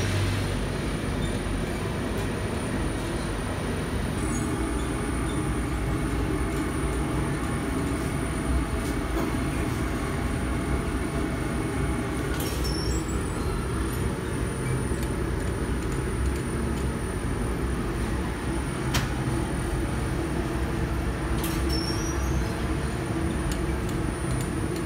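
Steady rumble and whir of an automated bread-dough sheeting and conveyor line running, with a few light clicks along the way.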